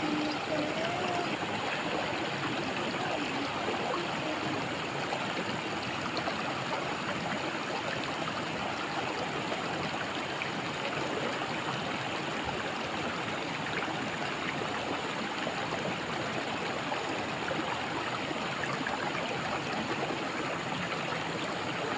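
Waterfall running, a steady, unbroken rush of falling water.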